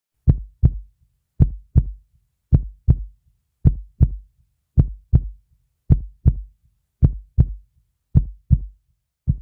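Heartbeat sound effect: slow, deep double thumps (lub-dub) repeating evenly, about nine beats a little over a second apart.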